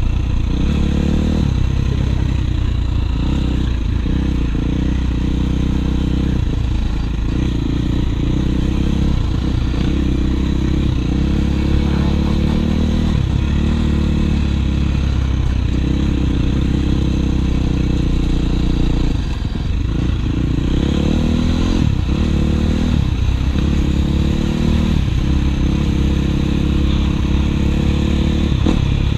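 Dirt bike engine running under load, heard from the rider's seat, its pitch repeatedly rising and dropping back every one to two seconds as the throttle is worked.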